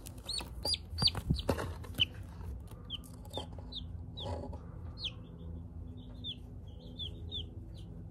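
Four-day-old chicks peeping: a steady stream of short, high, falling peeps, several a second. A few knocks sound in the first two seconds.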